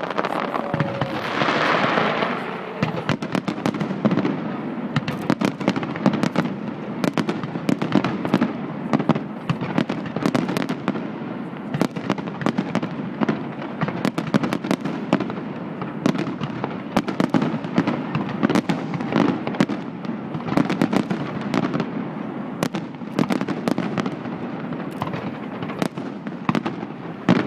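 Large aerial fireworks display: many shells bursting at once, dense rapid crackling and popping over a continuous low rumble, with a louder hissing swell about a second in.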